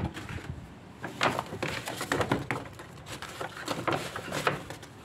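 Packaging rustling and crinkling as motorcycle gloves are handled and lifted out of a box holding a plastic bag, in irregular rustles that die away about four and a half seconds in.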